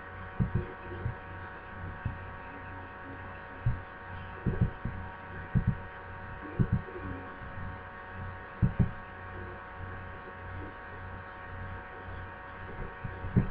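Steady electrical hum made of several fixed whining tones over a low drone, with a handful of soft, low thumps at irregular moments.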